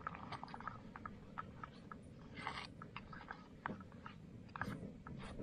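Hands handling packaging and camp gear: a run of small clicks and taps, with a crinkling rustle of wrapper packaging about two and a half seconds in, as meal rubbish is packed away.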